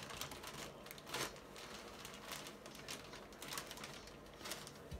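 Gift wrapping paper rustling and crinkling in irregular crackles as a present is unwrapped by hand.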